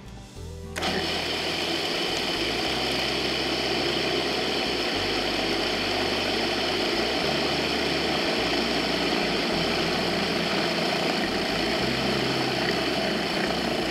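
Food processor motor switching on about a second in and then running steadily, its blade churning a walnut, coconut, oat and maple syrup mixture into a sticky dough.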